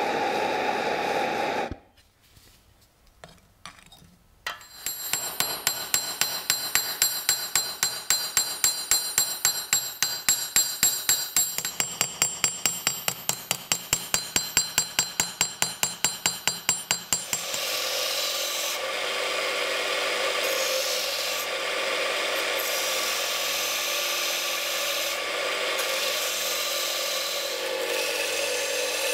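A gas torch hisses steadily for the first two seconds, then cuts out. After a short quiet, a hammer strikes the heated axe head on a steel anvil in a rapid run of ringing blows, about four a second, for around thirteen seconds. Then an electric grinder runs steadily with metal held against its wheel.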